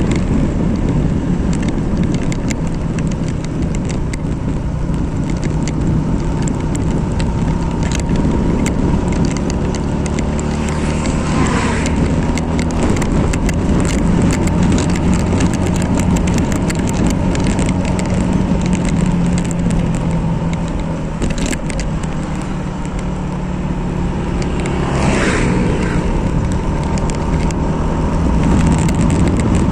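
Motorcycle engine running steadily at cruising speed, with road and wind noise.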